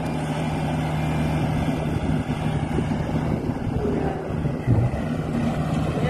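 Rice combine harvester's diesel engine and threshing machinery running steadily, a constant low drone, with one brief low thump late on.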